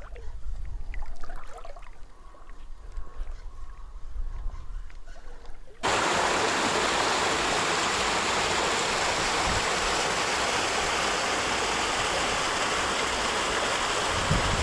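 A faint low rumble, then about six seconds in a loud, steady rush of flowing stream water cuts in abruptly and holds.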